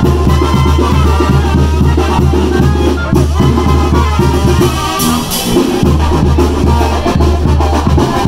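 Upbeat Latin music with drums, brass and a steady bass line, and a brief break about five seconds in.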